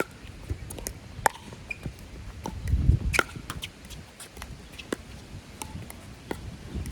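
Pickleball rally: paddles striking the plastic ball in sharp pocks at uneven intervals, the loudest about a second in and about three seconds in. Wind rumbles on the microphone, swelling around the middle.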